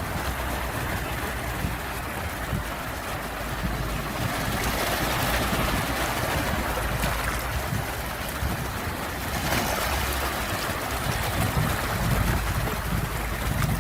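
Sea waves washing ashore: a continuous rush that swells about a third of the way in and again near the end, over a low rumble.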